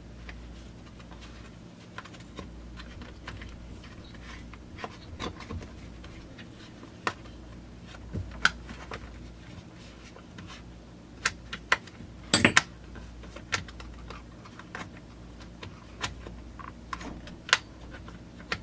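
Scattered clicks and taps of plastic and metal chainsaw parts being handled as a top cover is fitted onto the saw, with a quick cluster of louder clicks about twelve seconds in, over a low steady hum.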